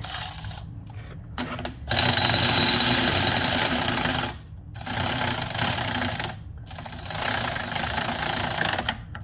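Impact wrench hammering in repeated bursts as it drives the nut down the threaded rod of a bearing press tool, pressing a new wheel bearing onto a Ford Focus spindle. There are two short bursts, then three longer runs of about two seconds each, the first the loudest.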